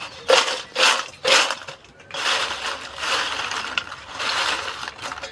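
Crispy fried potato chips rattling and rustling as they are tossed: three short shakes, then a few seconds of continuous dry rustling.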